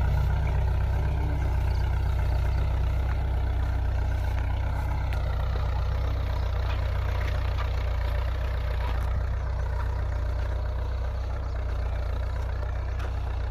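Kubota tractor's diesel engine running steadily with a deep, even hum.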